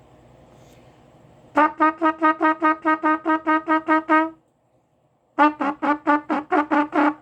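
Trumpet playing rapid repeated tongued notes on one pitch, about five a second, in two runs with a short break between them. The player hears his articulation as unclean here, the tonguing falling apart as he relearns after having his braces removed.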